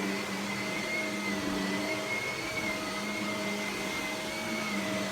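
Vacuum cleaner running steadily and pretty quiet: an even motor noise with a low hum and a high whine that wavers slightly in pitch.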